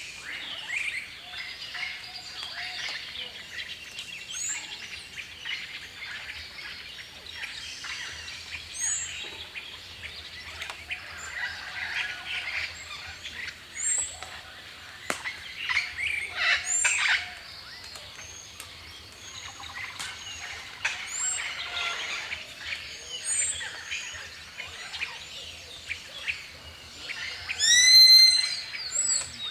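Many birds chirping and calling together in a dense chorus. A short high whistled note repeats every few seconds, and a loud ringing call with several stacked tones comes near the end.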